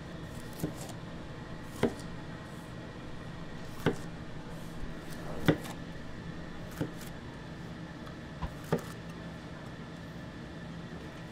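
Kitchen work sounds: sharp knocks and clinks of utensils on wood and crockery, about seven scattered strokes, over a steady background hum.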